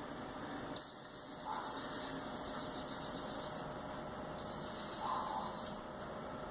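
An insect trilling in two high-pitched, rapidly pulsing bursts: a longer one of nearly three seconds, then after a short gap a shorter one of about a second and a half.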